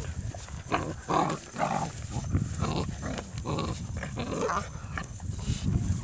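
Dutch Shepherd x Belgian Malinois puppies vocalizing in short, repeated bursts as they play-fight.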